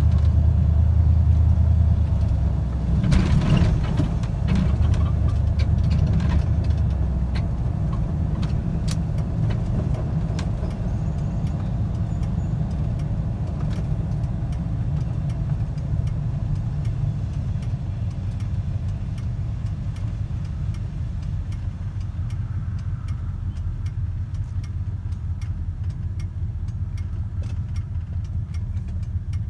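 Steady low engine and road rumble heard from inside a moving car, with scattered sharp clicks and a louder swell about three seconds in, easing off gradually toward the end.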